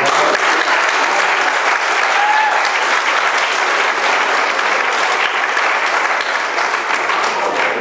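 A roomful of people applauding, steady and loud.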